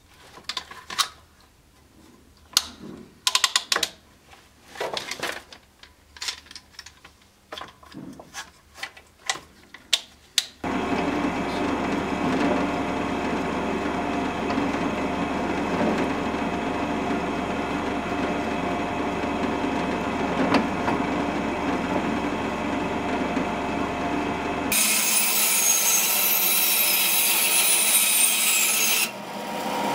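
Irregular clicks and taps of hand work at a bench for about ten seconds. Then a drill press starts abruptly and runs steadily, drilling into a wooden handle piece set on a steel crossguard. Near the end it gives way to a bandsaw cutting.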